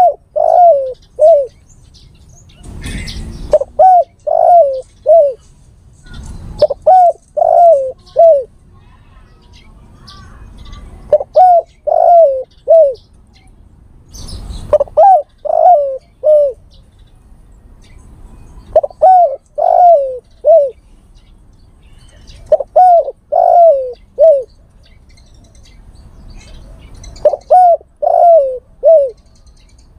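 Male spotted dove cooing: phrases of three or four falling coos, repeated about every four seconds, some eight times. This is the male's call to a female, used as a lure call.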